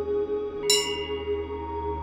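Hanging temple bell struck once, about two-thirds of a second in, ringing out and fading over soft, steady ambient background music.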